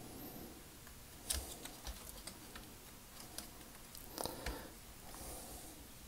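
Faint clicks and light knocks of a Generation Toy GT-2 Tyrant transforming robot figure's parts being handled and fitted together by tab and slot. The sharpest click comes just over a second in, with a small cluster of clicks around four seconds.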